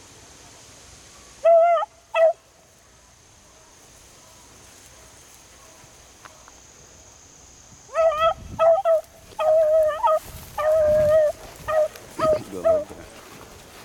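Beagles baying while trailing a rabbit: two short calls, then from about eight seconds in a quick string of about ten high-pitched bays, some drawn out.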